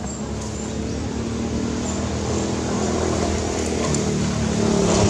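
A vehicle engine running with a steady hum, growing gradually louder.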